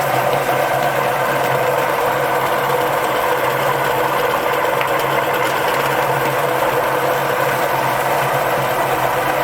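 Electric meat grinder running with a steady motor hum and a light rattle.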